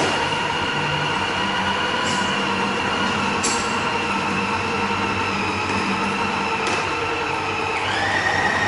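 Electric food processor motor running steadily with a whine as it grinds beef with ice into bakso paste, with a few sharp knocks. Near the end its pitch steps up.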